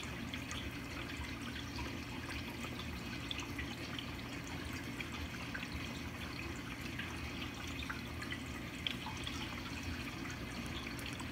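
Reef aquarium's circulating water: a steady trickle with small drips, over a low steady hum from the tank's pump.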